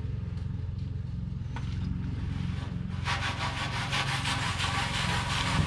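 A rag wet with turpentine scrubbed rapidly over bitumen underseal on a steel inner fender, starting about three seconds in. A steady low hum runs underneath.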